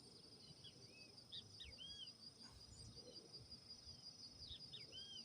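Faint nature ambience: insects keep up a steady, high-pitched trill while a bird gives short arched whistled calls in small clusters, twice around the middle and again near the end.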